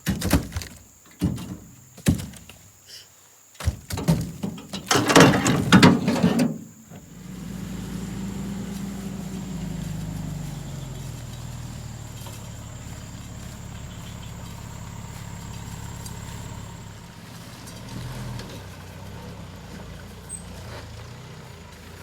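A run of loud knocks and thuds for the first few seconds, then a truck engine running steadily, its pitch sagging a little before it holds.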